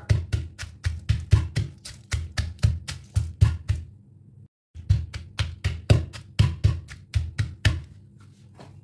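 Wooden pestle pounding long beans and chillies in a clay mortar: steady knocks with a dull thud, about three a second. The sound cuts out completely for under a second a little before halfway, and the pounding stops about a second before the end.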